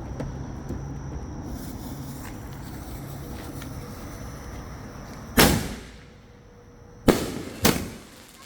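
Fireworks going off: three sharp bangs, the first about five seconds in and two more in quick succession a couple of seconds later, each echoing briefly, over a low steady background rumble.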